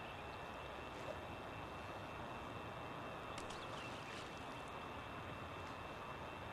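Quiet outdoor background: a steady low hiss, with a few faint, brief high chirps about three to four seconds in.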